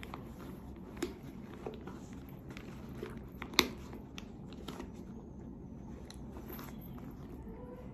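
Handling of a quilted leather Chanel flap bag: scattered soft taps and clicks as the flap is pressed down and the clasp worked, with one sharp metal click about three and a half seconds in as the clasp is fastened.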